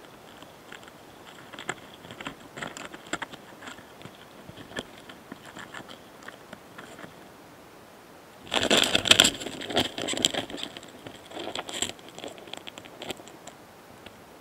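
Close-miked scratching and clicking from a mating pair of karakane-hana-kamikiri longhorn beetles moving on a plant, sounds the recording presents as their courtship sounds. Scattered small ticks give way, about halfway through, to a dense, louder burst of scraping lasting a second or two, then sporadic ticks again.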